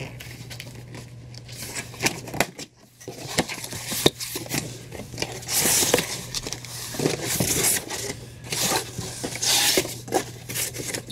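A cardboard shipping carton being opened and unpacked by hand: flaps bending and scraping, and packing material rustling and crinkling, with scattered knocks and clicks. Louder rustling comes about six seconds in and again near the end.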